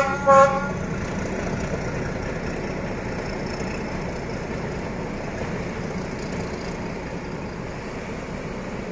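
D12E diesel-electric locomotives working away along the track, their engines a steady rumble that slowly fades as they recede. A short horn toot sounds about half a second in.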